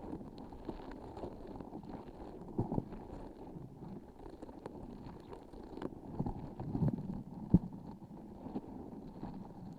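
Close-miked transparent sticky object with a filling inside being squeezed and handled: a soft, low crackling with scattered small clicks, and one sharper click about three-quarters of the way in.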